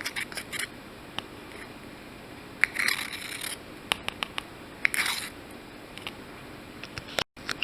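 A spoon scraping glue down the inside of a cup, with short clicks and taps of the spoon against the cup and two brief longer scrapes.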